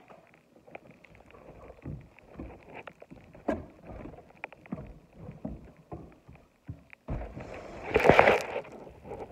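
Rustling and scattered knocks from a phone being handled, with a louder rubbing noise against the microphone starting about seven seconds in.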